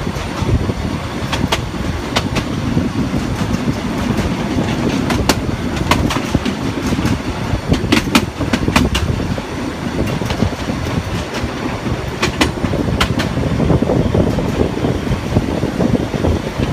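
Narrow-gauge train running along the track, heard from an open passenger car: a steady rolling rumble of wheels on rail, with scattered sharp clicks.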